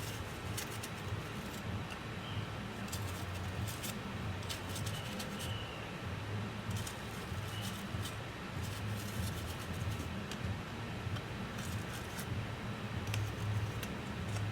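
Small hand tools and parts being handled on a bench: scattered light clicks and scratches over a steady low hum.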